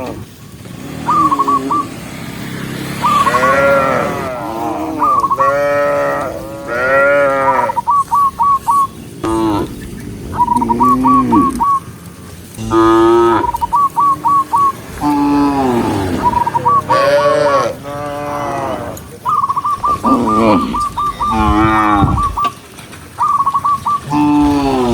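Cows mooing over and over, call after call with little pause, some calls rising and falling in pitch. Between the moos come quick runs of short, high chirping notes.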